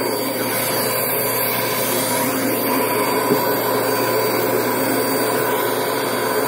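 Vacuum cleaner running steadily, a constant rushing hiss with a steady whine over it.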